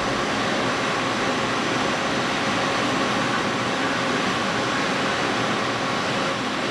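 Steady machine hum and hiss with a few faint steady tones from a running sinker EDM machine, with no sparking heard.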